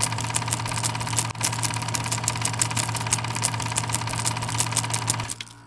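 Film projector running: a rapid, even clatter of the film advancing over a steady motor hum and whine, stopping shortly before the end.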